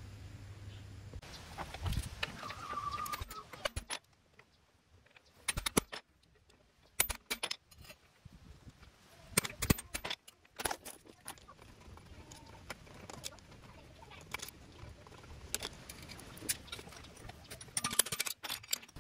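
Scattered metallic clinks and taps of a steel tool against the Lambretta engine's crankcase and bearing housing as it is dismantled. A short bird chirp comes about three seconds in.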